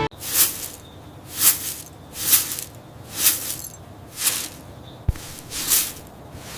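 A series of short hissing swells, about one a second, with a single low thump about five seconds in.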